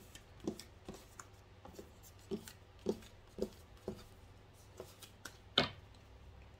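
Tarot cards being picked up off a table and stacked: a string of light taps and soft card-on-card clicks, with one sharper tap near the end.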